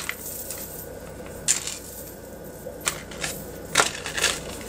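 A dark metal multi-strand chain necklace clinking and rattling as it is handled and drawn out of a clear plastic zip bag, with soft crinkles of the plastic. The sound comes as a handful of brief clinks and rustles, the loudest near the end.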